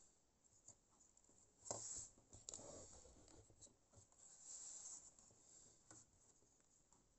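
Faint scratching and rubbing from hands handling and turning a small plastic model locomotive body, loudest about two seconds in.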